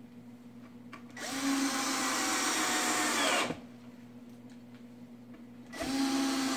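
Cordless drill-driver driving screws into the wooden pallet frame: two runs of a couple of seconds each, the motor whine rising as it spins up and dropping as it stops, the second starting near the end.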